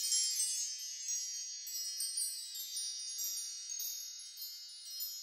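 Tinkling wind chimes: a cluster of high chime tones that rings on and slowly fades, with a few light fresh strikes.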